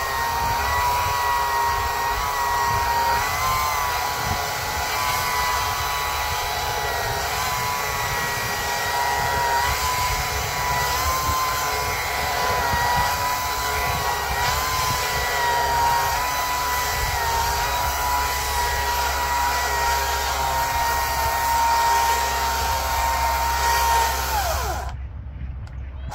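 A motor running with a steady high whine whose pitch wavers slightly; near the end the pitch glides down and the sound drops out briefly.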